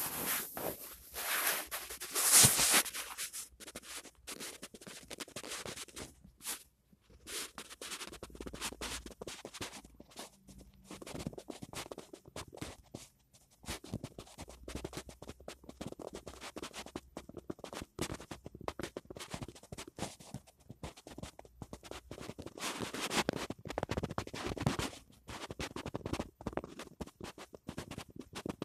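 Scratchy rubbing and crackling close to the microphone, a dense run of irregular clicks, loudest in the first three seconds.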